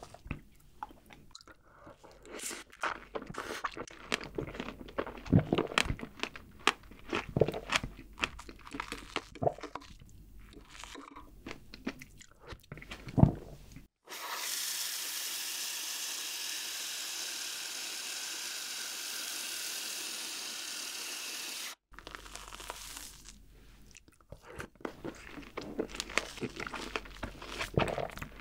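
Metal spoon clinking and scraping in a glass bowl, with mouth noises of eating whipped cream. About halfway through, an aerosol whipped-cream can sprays into the bowl with a steady hiss for about eight seconds, and then the spoon scraping and eating start again.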